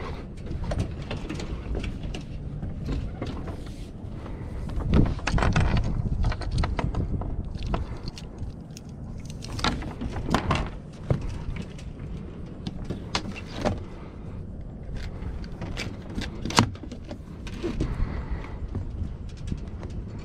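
Scattered knocks, thumps and light metallic clinks as a person climbs about the deck of a small fibreglass sailboat and handles its rigging hardware, over a steady low rumble. The sharpest knocks come about five seconds in and again near sixteen seconds.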